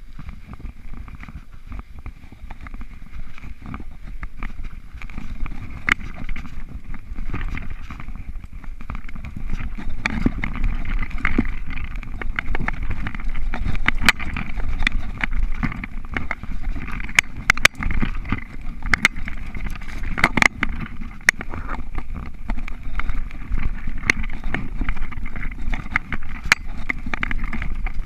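Mountain bike ridden fast over forest singletrack: a steady rumble of wind and trail on the camera microphone, with sharp rattles and knocks from the bike over bumps. The knocks grow louder and more frequent about ten seconds in, as the wheels run over wooden boardwalk planks.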